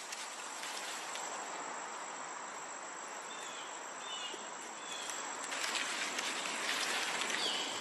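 Steady high-pitched insect chirring, with a few faint short chirps in the middle and a slightly louder rustling texture over the last couple of seconds.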